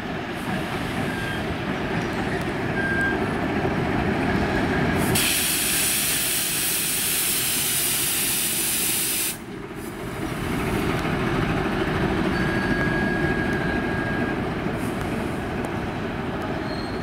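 TEM18DM diesel shunting locomotive running light past at low speed, its diesel engine and wheels making a steady rumble. A loud hiss of air starts about five seconds in and cuts off suddenly about four seconds later.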